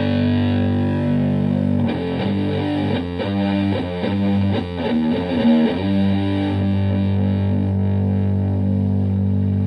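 Stratocaster electric guitar played through a Marshall Supa Fuzz prototype fuzz pedal into a Fender Twin Reverb–style amp, with a heavily distorted tone. A held fuzz chord gives way about two seconds in to a quick run of notes and chord changes, and from about six seconds a final fuzzed chord is left to sustain.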